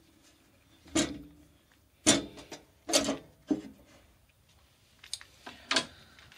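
About six sharp clicks and knocks, spaced irregularly, from scissors being handled against a band saw's sheet-metal lower cover.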